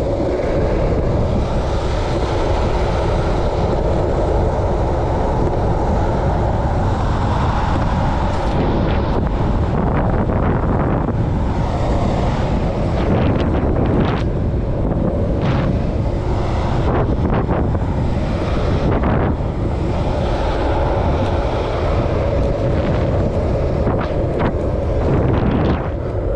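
Wind rushing over an action camera's microphone during a downhill ride at about 23 mph, with a steady rumble of wheels rolling on asphalt.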